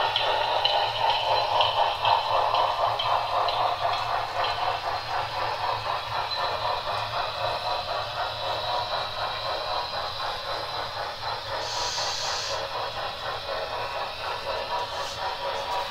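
HO scale model train running along the layout track: a steady whirring with fast, even clicking of the wheels over the rails, with a short high hiss about twelve seconds in.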